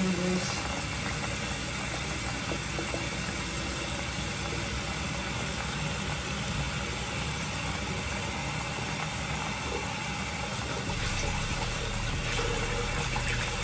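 Bathroom sink tap running steadily, an even hiss of water, while makeup brushes and a sponge are washed by hand under it.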